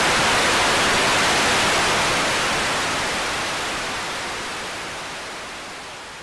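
Steady static-like hiss left as the tail of the song's production after the music stops, fading out slowly.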